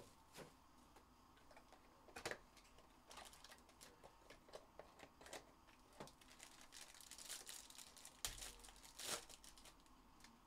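Faint crinkling and tearing of a trading-card box's plastic wrapper and pack wrapper being pulled open, with the light shuffle of a stack of cards being handled. There are louder crinkles about two seconds in and again later on.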